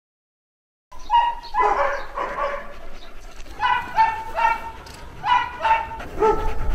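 Borzois giving short, high-pitched barks and yelps one after another, starting about a second in.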